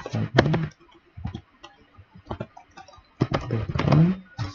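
Computer keyboard keys tapped in short, scattered strokes as a word is deleted and retyped.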